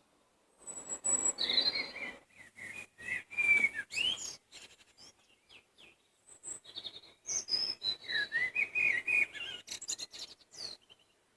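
A songbird singing two long phrases of quick, varied, high warbling notes, separated by a short pause.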